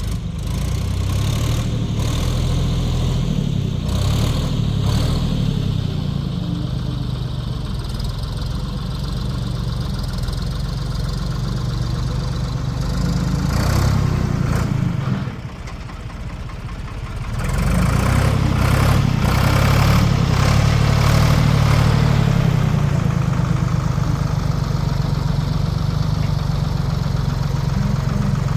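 Diesel engine of a 1973 Ford 4500 industrial backhoe running steadily while the machine digs out a tree stump, with a few sharp knocks in the first half. Just past the midpoint the engine drops to a quieter note for about two seconds, then runs louder again.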